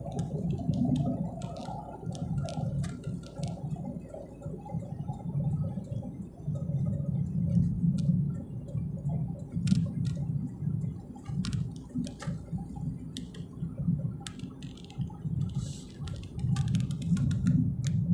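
Uneven low rumble of a car driving along a road, with scattered light clicks and rattles.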